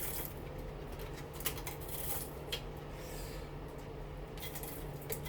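Light clicks, scrapes and rustling of metal parts and wire being handled during a motor teardown, over a steady low hum.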